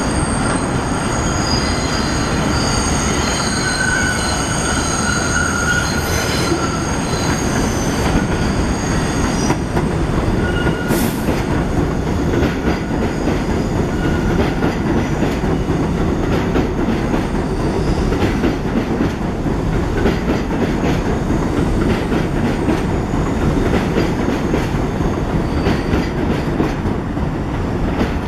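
An R62A subway train on the elevated IRT Flushing Line running along the platform. Its steel wheels squeal with thin high tones for about the first ten seconds. Then a steady rumble takes over, with the wheels clicking over the rail joints.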